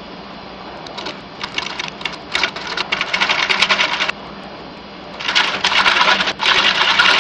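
Wood lathe running with a steady hum while a hand-held turning tool cuts into the spinning plywood of a donut jig to widen its central opening, the cutting heard as loud, gritty scraping in two spells: from about a second in to four seconds, and again from about five seconds in.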